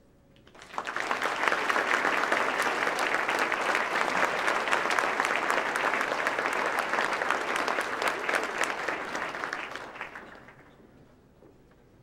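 Audience applauding. The clapping starts about a second in, holds steady, and dies away after about ten seconds.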